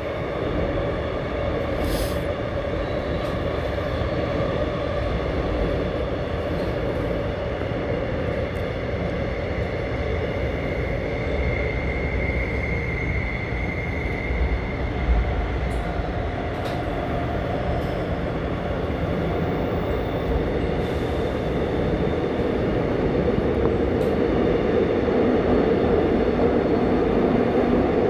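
Running noise heard inside the car of an AREX commuter train in a tunnel: a steady rumble of wheels on rails, with a high whine about halfway. The noise grows louder near the end.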